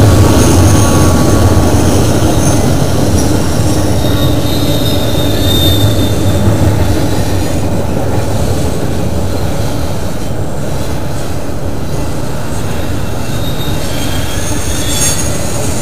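Norfolk Southern double-stack intermodal train rolling past close by: a steady rumble of container well cars on the rails, with thin, high wheel squeals coming and going. A low hum fades over the first few seconds, and the whole sound slowly gets quieter.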